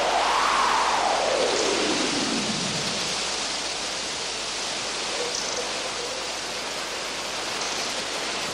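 A steady rushing noise, with a single tone that rises briefly and then glides down, fading out about three seconds in.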